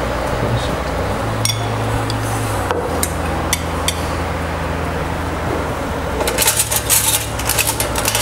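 A metal spoon clinking and scraping on a ceramic dinner plate as food is arranged on it: a few separate sharp clinks, then a quicker run of clicks and clinks about six seconds in.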